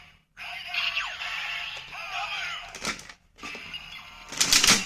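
Kamen Rider W Ridewatch toy playing its electronic sound effects through its small speaker after a button press: gliding synth tones and effects, a click about three seconds in, and a loud noisy burst near the end. Its batteries are running low.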